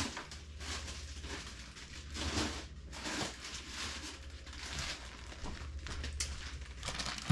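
Soft, irregular rustling and crinkling as ingredients and packaging are handled during kitchen prep, with a few light knocks near the end, over a low steady hum.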